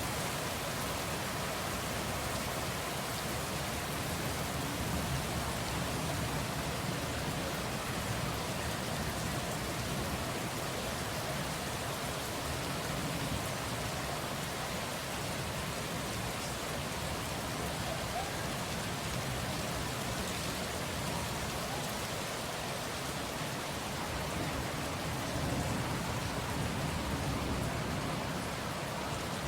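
Steady rain falling on a surface, an even wash of patter with no breaks.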